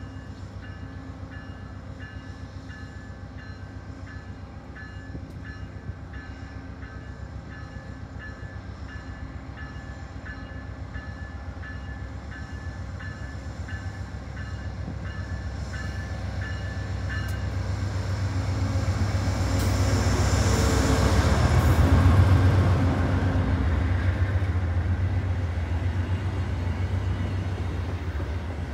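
VIA Rail P42DC diesel locomotive running as it pulls out and comes past, growing louder to a peak about 20 seconds in, then its passenger cars rolling by. A bell rings steadily and stops about 17 seconds in.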